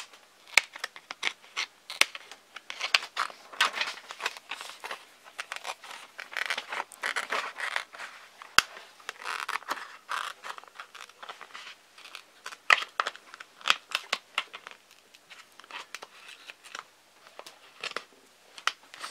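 Household scissors cutting a thin clear plastic canopy along a marked line: a run of short, sharp snips at irregular spacing, with the stiff plastic scratching and crackling as it is cut.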